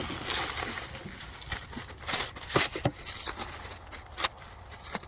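A dull knife cutting and sawing at packing material, with irregular scraping and several sharp cracks and snaps.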